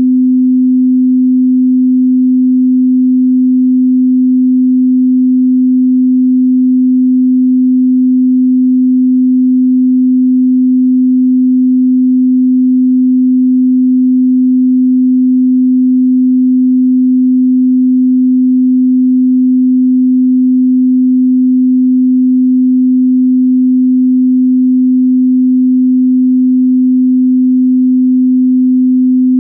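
A pure 255 Hz sine tone, held steady and unbroken at one pitch and level.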